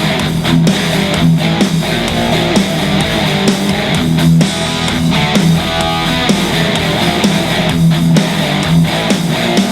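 Guitar-driven rock music with no vocals, played back through a Klipsch RSB-14 soundbar in a listening test.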